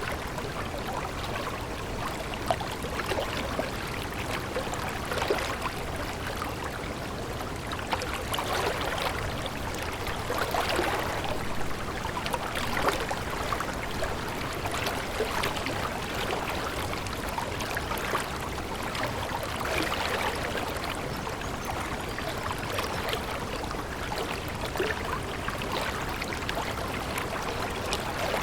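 Water flowing and babbling steadily, swelling a little every two or three seconds, with small splashes and trickles.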